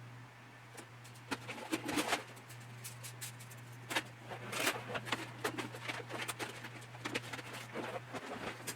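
Light clicks and rustles of plastic model-kit sprues and a photo-etch fret being handled on a workbench, over a steady low hum.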